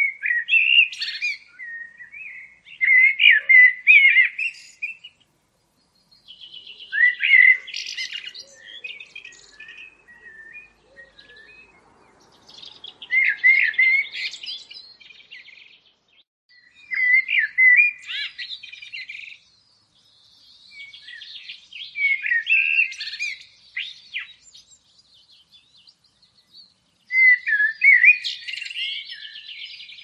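A songbird singing short phrases of one to two seconds, about seven in all, repeated every few seconds, with fainter twittering in between.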